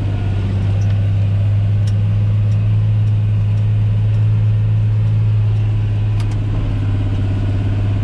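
John Deere 8100 tractor's six-cylinder diesel engine running under steady load as it pulls a disc harrow through wet soil, heard from inside the cab as an even low drone. A few faint ticks sound over it.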